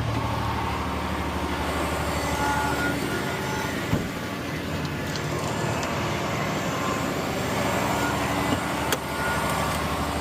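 Concrete mixer truck's diesel engine running steadily while the drum turns to run out the last of the load, with a couple of short knocks, about four seconds in and near the end.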